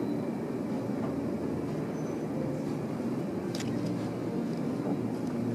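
Steady low mechanical rumble of a cruise ship's interior, with a faint click about three and a half seconds in.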